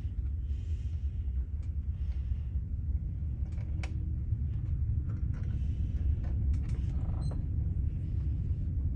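Steady low background rumble, with a few faint, light clicks of fingers and thread at a sewing machine's plastic thread guides.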